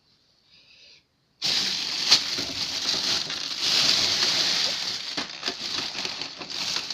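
Packaging rustling and crinkling as the printer is handled in its wrapping. It starts suddenly about a second and a half in and runs on as a dense rustle full of small crackles.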